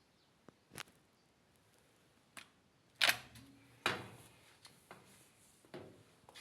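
A few separate sharp clicks and knocks, with the loudest two about three and four seconds in.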